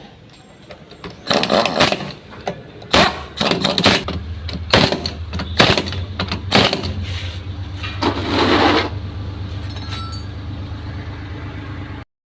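Piaggio Ape three-wheeler's small engine being started: a run of clattering knocks and bursts, then it catches and runs with a steady low hum. It gives one brief louder rush about eight seconds in, and the sound cuts off suddenly near the end.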